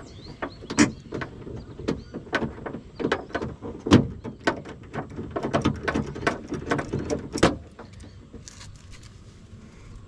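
Irregular clicks and knocks of a driver turning a Torx screw inside a car door, and of the door-handle parts being worked loose. The loudest knock comes about four seconds in, and the clicking stops about seven and a half seconds in.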